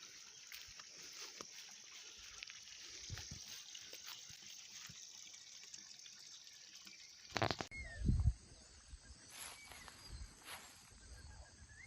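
Faint outdoor ambience of trickling water, with two loud short knocks about two-thirds of the way through, followed by a few small chirps.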